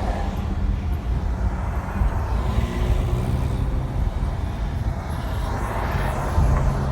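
Car driving: a steady low rumble of engine and road noise, with a faint engine hum that rises and falls slightly.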